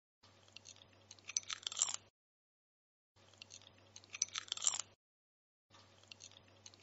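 Crispy air-fried chicken skin crackling and crunching as tongs press and tear into a chicken leg. The crackling comes in three bursts of under two seconds each, separated by silence, each building to its loudest crackles near its end.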